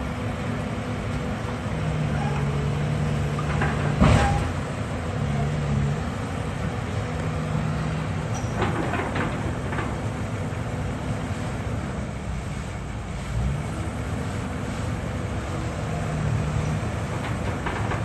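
CAT hydraulic excavator's diesel engine running steadily, its note swelling under hydraulic load several times as the arm works. A loud metallic knock about four seconds in, with a few lighter knocks a few seconds later.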